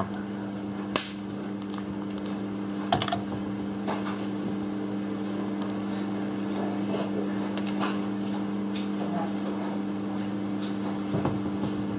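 Scattered clicks and light knocks of a compression-tester gauge and its hose being handled and moved between spark-plug holes on a bare engine, over a steady low hum.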